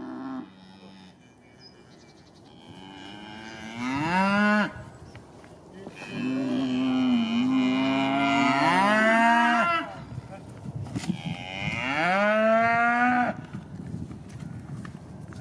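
Galloway cattle mooing: three calls, a short one about four seconds in, a long one held for over three seconds, and a third about twelve seconds in, each rising in pitch as it ends.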